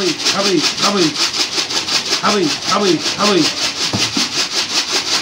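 Domestic homing pigeons cooing, low arching calls repeated two or three times a second, over a fast even rasping rhythm of about seven strokes a second.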